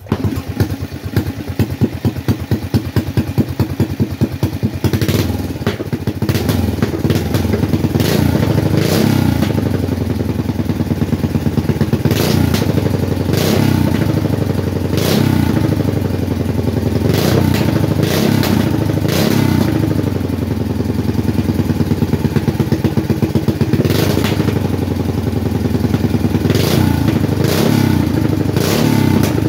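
Yamada 18 hp single-cylinder engine, fitted with a 100 mm piston and a 42 mm carburettor, catching right at the start and running with slow, lumpy firing pulses for the first few seconds. It is then revved up and down over and over on its throttle cable, with sharp cracks at many of the revs.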